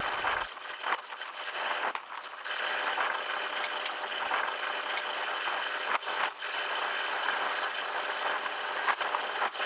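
Steady rushing noise aboard a moving cruise ship, with a faint hum of machinery and a few light clicks.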